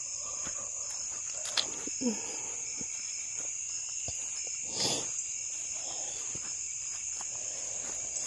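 Steady high-pitched insect chorus trilling without a break. A few sharp clicks and a short rustle just before five seconds in sound over it.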